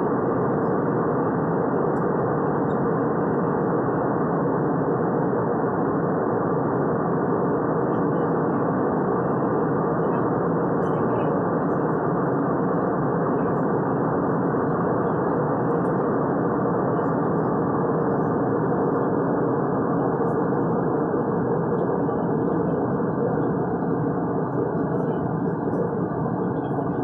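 Steady cabin noise of an Airbus A320 in flight: the even rush of engines and airflow, unchanging throughout.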